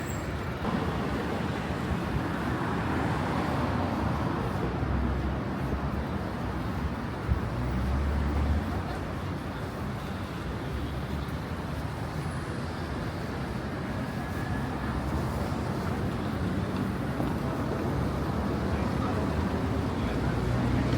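Busy city street ambience: a steady wash of traffic noise with the low rumble of passing vehicles and indistinct voices of passers-by. A single short tick sounds about seven seconds in.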